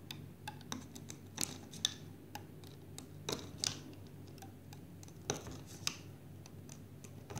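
Metal loom hook clicking and scraping against the clear plastic pegs of a rubber-band loom as rubber bands are hooked and looped up, giving irregular light clicks.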